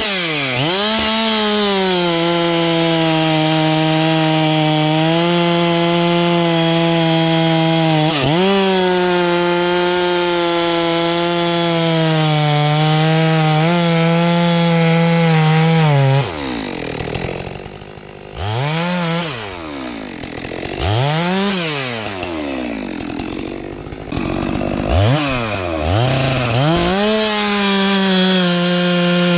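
Two-stroke chainsaw running at full throttle and cutting through durian wood, its pitch sagging briefly as the chain bites. About halfway it drops back toward idle with a few quick blips of the throttle, then goes back to full throttle near the end.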